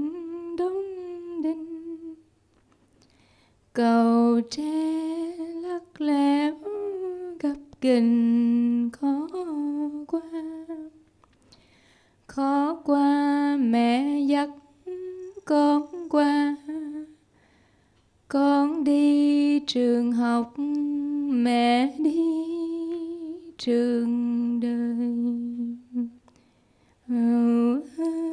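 A woman singing a Vietnamese folk lullaby unaccompanied into a microphone: slow, held phrases with pitch bends, broken by short pauses.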